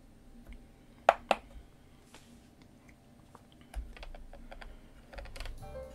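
Clicks from a Roberts Stream 94L radio's controls: two sharp clicks about a second in, then scattered small ticks as the rotary volume knob is turned. Music starts playing quietly from the radio's speaker near the end.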